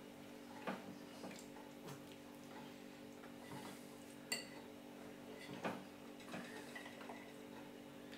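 A plastic baby spoon tapping and scraping a ceramic plate as food is scooped up: a few faint soft knocks and one clearer clink with a short ring about four seconds in. A steady low hum runs underneath.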